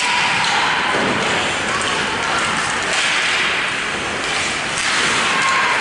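Ice hockey rink ambience: a steady noisy wash of skates scraping on the ice, with voices of players and spectators mixed in.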